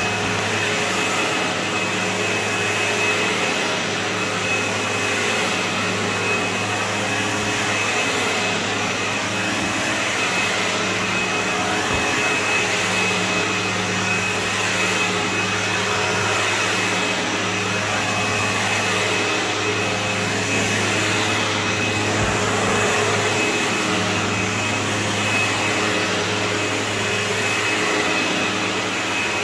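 Sebo X4 upright vacuum cleaner running steadily over carpet, its motor giving a constant high whine over a low hum.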